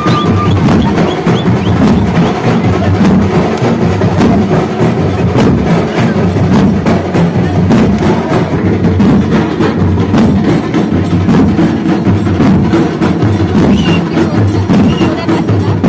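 A procession drum band playing a fast, driving rhythm of loud, closely packed drum strokes without a break.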